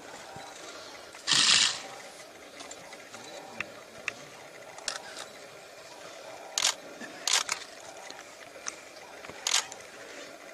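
A handful of sharp, dry clicks over a quiet outdoor background, with one longer rattling burst just over a second in and single clicks later, around five, six and a half, seven and nine and a half seconds.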